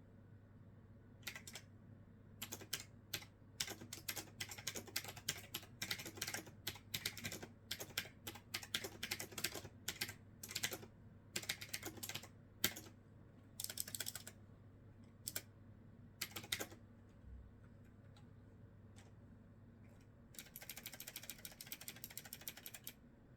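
Typing on a new clicky computer keyboard: irregular runs of key clacks, thinning out past the middle, then a fast, dense run of keystrokes near the end.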